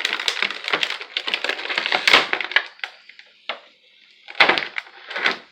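Plastic packaging crinkling and crackling as it is handled: a dense run of crackles for about two and a half seconds, then three shorter bursts near the end.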